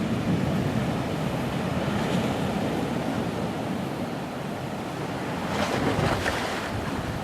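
Waves on the River Mersey washing and churning in strong wind, with wind noise on the microphone; a louder surge of water about six seconds in.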